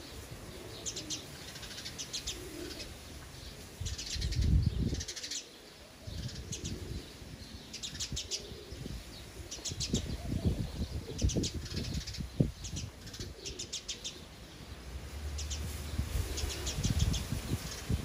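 House sparrows chirping in quick repeated series, with low rumbling thumps on the microphone.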